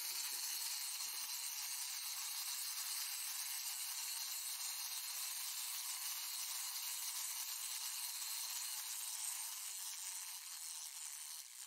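A steady high hiss with no low end, tailing off slightly near the end.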